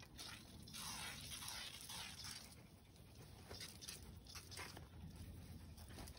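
WD-40 aerosol can spraying in several short hissing bursts, lubricating a mower tire and inner tube.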